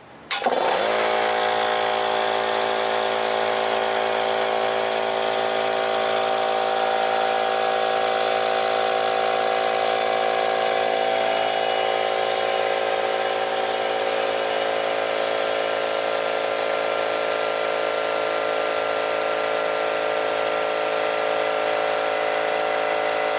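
Central Pneumatic 125 PSI air compressor switching on with a brief rising whine just after the start, then running steadily as it pumps up the tank. Tank pressure is building, a sign that the replaced reed valve is now holding air.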